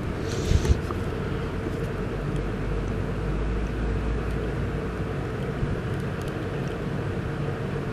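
Steady low rumbling background noise with a faint hum, and a brief knock about half a second in.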